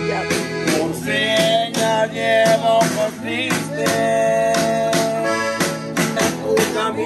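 A song playing: an instrumental stretch with a steady percussive beat and a held melody line.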